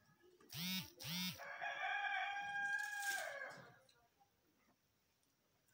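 A rooster crowing once: two short notes, then one long held note, over about three seconds.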